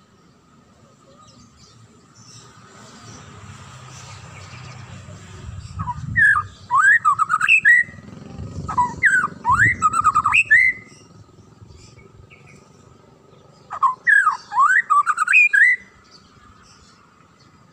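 White-rumped shama singing in three bursts of quick whistled notes that sweep up and down, each burst lasting about two seconds, with short pauses between. A low rumble sits under the first two bursts, and a faint steady high whine runs underneath.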